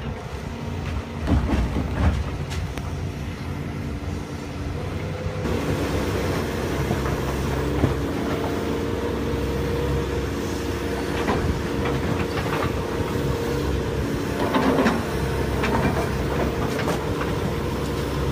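Hydraulic excavator's diesel engine running steadily, its note rising about five seconds in as it works, while the bucket pulls down stone walls: scattered knocks and clatters of falling masonry and rubble.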